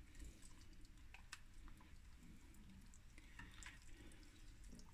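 Near silence, with faint scattered soft clicks and squishes of hands rubbing garlic and ginger paste over and into whole raw fish.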